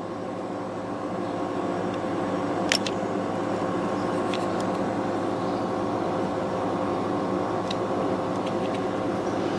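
Steady droning hum of a running machine with several fixed tones, growing slightly louder, with a few light clicks, including one about 3 s in and another about 8 s in.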